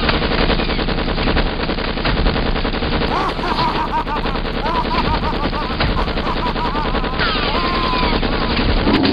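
Tommy gun (Thompson submachine gun) fire, a long unbroken burst of rapid shots. A man laughs loudly over the gunfire from about three seconds in.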